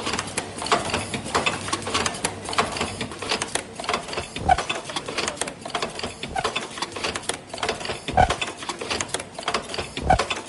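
Automatic disposable face-mask making machine running: a rapid, continuous clatter of its mechanical and pneumatic stations, broken by three heavier thumps about halfway through, later on and near the end.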